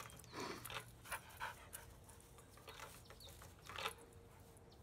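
Dog panting faintly in a few short, breathy puffs, most of them in the first second and a half and one more near the end.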